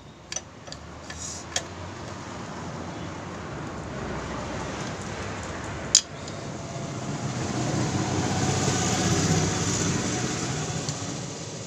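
A passing vehicle rumbles by, its noise swelling to a peak about nine seconds in and then fading. A few light clicks sound in the first two seconds, and one sharp click about six seconds in.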